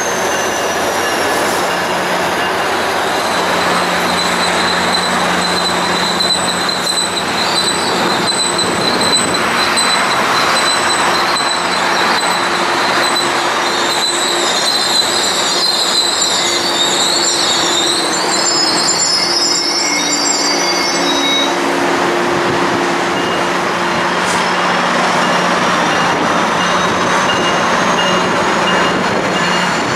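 Metrolink bilevel passenger train rolling slowly past on curved track, its steady rumble topped by high-pitched wheel squeal. One thin squeal tone is held for much of the time, and a wavering cluster of squeals rises and falls about halfway through.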